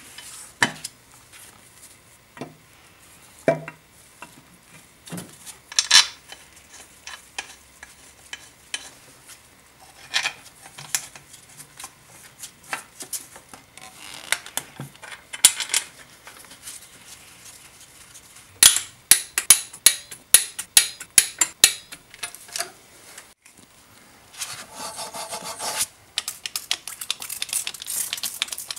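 Metal clinks and knocks as the aluminium intake manifold and hand tools are handled during refitting onto the engine, with a quick run of sharp clicks about two-thirds of the way in and a short scrape near the end.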